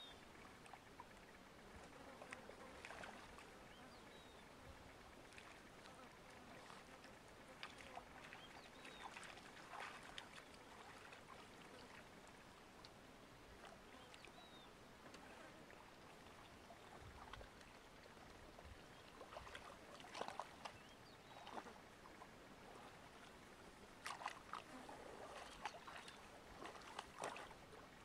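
Faint splashing and sloshing of spotted hyenas moving and shifting in a shallow muddy pool, in scattered bursts, with louder splashes near the end.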